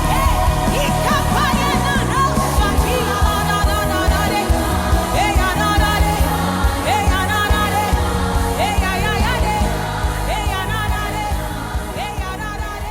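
Music with a singing voice over a steady bass line, fading down near the end.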